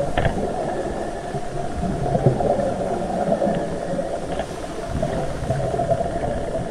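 Muffled underwater noise recorded on a reef: a steady rushing haze with a few faint clicks.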